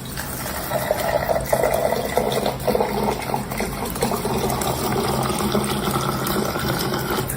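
Running water: a steady rush of liquid.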